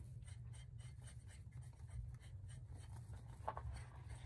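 Hands handling a nylon cast net and its chain sinkers: faint, irregular small clicks and scratches, about three or four a second, as the mesh is picked through, over a steady low hum.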